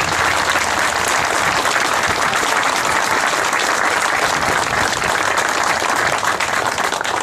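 Crowd applauding steadily, a dense even clapping that dies away suddenly near the end.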